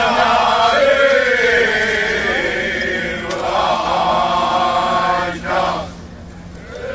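Group of men singing a Cretan rizitiko song unaccompanied, in long held notes. The phrase ends about six seconds in, leaving a brief lull.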